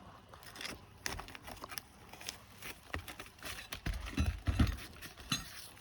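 Scattered light clicks and scrapes from prying at asphalt roof shingles and nails with a pry bar, with a few dull thumps about four seconds in.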